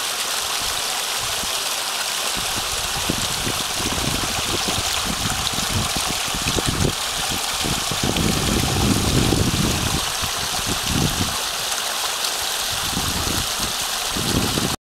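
Sewage water rushing and splashing out from under a sewer manhole lid under a little pressure and running off into a creek, a steady rush with irregular low rumbles coming and going from about two seconds in.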